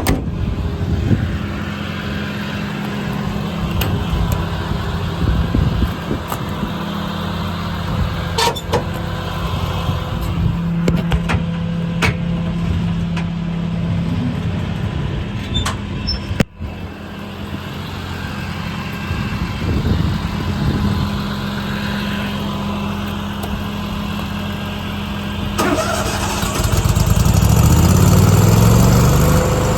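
An engine running steadily at idle, with scattered clicks and knocks over it. It breaks off abruptly about halfway through, and near the end the engine speeds up, its pitch climbing as it gets louder.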